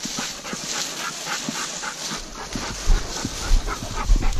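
Hunting dog panting quickly, in short even breaths about four a second. Wind rumbles on the microphone from about halfway through.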